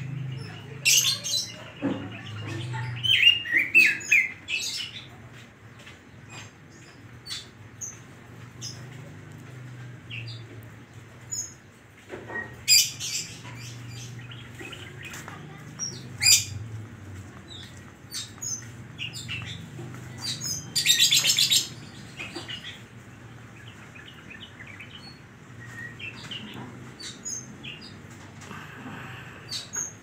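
Caged Oriental magpie-robin singing in short, scattered bursts of sharp whistled notes and quick chirps, with fast chirping phrases in the first few seconds and one loud harsh, buzzy burst about two-thirds of the way through.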